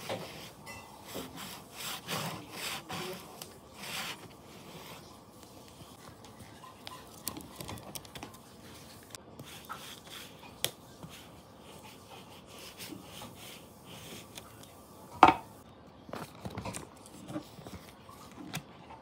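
Stickers and paper being handled at close range: a quick run of rubbing strokes, then quieter rustling and small clicks, with one sharp click about fifteen seconds in.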